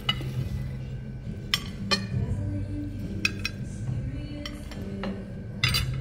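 Metal serving tongs and cutlery clinking against ceramic plates, about half a dozen sharp clinks spread through, over soft background music.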